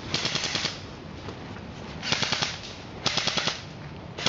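Airsoft rifle firing short full-auto bursts of rapid shots: three bursts of about half a second each, near the start, about two seconds in and about three seconds in, and another starting at the very end.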